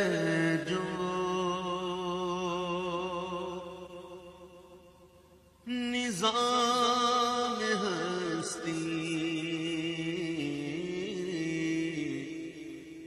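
Male voice singing the opening of an Urdu hamd, a devotional chant of long, drawn-out notes with vibrato. It comes in two long phrases that each fade away, the second entering about six seconds in.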